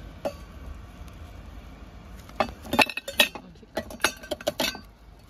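Frozen coffee ice cubes pushed out of a plastic ice tray, dropping and clinking into a stainless steel tumbler: a quick run of clinks about two and a half seconds in and another run about a second later.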